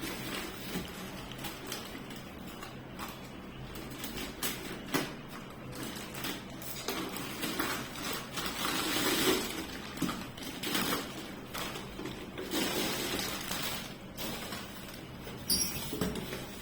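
Irregular handling noises: rustling and scraping with scattered light clicks and knocks as a mixer grinder and its parts are handled and unpacked. A faint steady low hum lies underneath.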